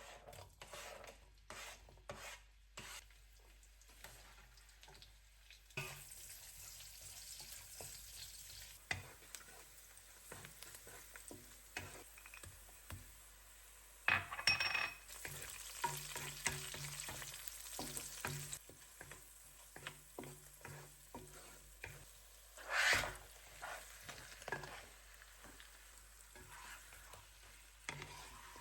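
Food sizzling in a frying pan while a utensil stirs it, with many small taps and scrapes against the pan. The sizzle starts about six seconds in and flares louder twice, near the middle and about two-thirds of the way through, and a low steady hum runs underneath for several seconds.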